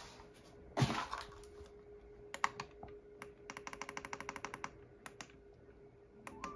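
Clicking from a Gemmy Orchestra of Lights controller box as its buttons are pressed: single clicks, and midway a quick run of about ten clicks a second. A short rustle of handling comes about a second in, and a faint steady hum runs underneath.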